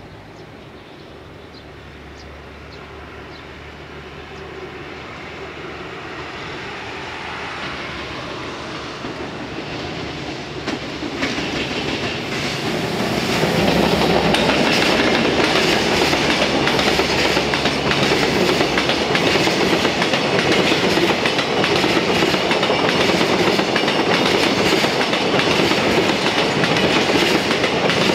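EF210 electric locomotive hauling a container freight train, approaching and growing steadily louder, passing about halfway through. A long line of container wagons then rolls by with a steady clickety-clack of wheels over the rail joints.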